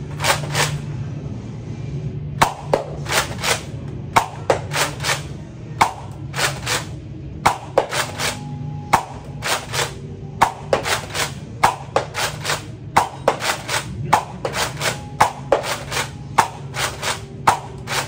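Nerf Rival Artemis pump-action foam-ball blaster being pumped and fired over and over: sharp plastic clacks in quick groups of two to four, roughly one shot a second.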